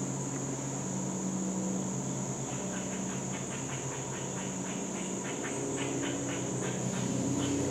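A steady, high, continuous chorus of insects such as crickets over a low droning hum, with a run of soft ticks from about two and a half seconds in.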